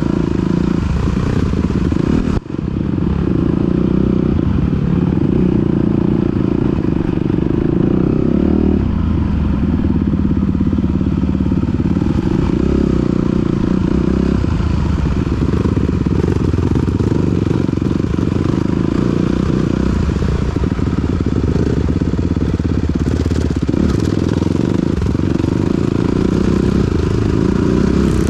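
2021 Honda CRF250R's single-cylinder four-stroke engine through a Yoshimura RS9T titanium exhaust, running on the trail, its note rising and falling with throttle and gear changes. The sound drops out briefly about two and a half seconds in.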